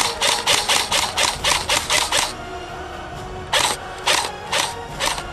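Airsoft AK-style replica rifle firing: a rapid string of about a dozen sharp shots, roughly five a second. After a pause of about a second, four slower single shots follow.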